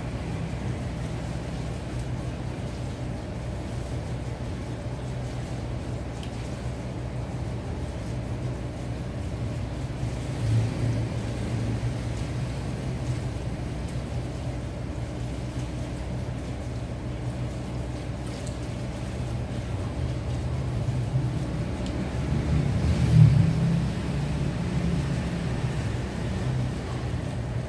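Steady low mechanical hum, swelling briefly about ten seconds in and again, louder, a couple of seconds before the end.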